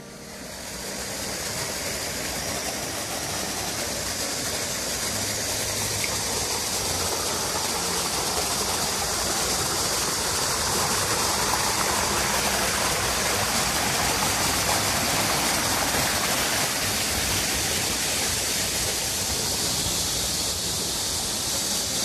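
Shallow, rocky mountain stream rushing and splashing over stones and a small cascade between boulders: a steady rush of water that fades in over the first second or two.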